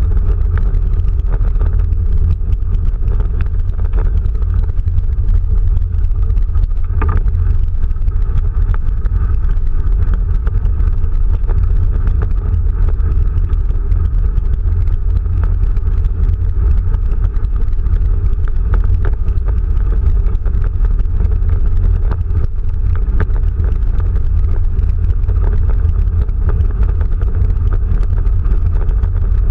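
Quest velomobile rolling fast over a gravel path: a loud, steady low rumble of tyres and air through the fibreglass shell, with scattered small clicks of gravel.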